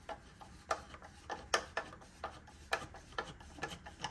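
Light clicks and taps, about two a second, of a plastic dust attachment and its screws being worked into place on a miter saw.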